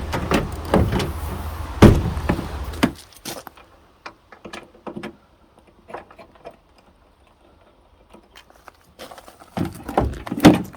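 Clicks, knocks and light metallic rattles of car door hardware being handled and fitted back into the door, with one sharp knock about two seconds in and a busier run of knocks near the end. A low steady hum underneath stops about three seconds in.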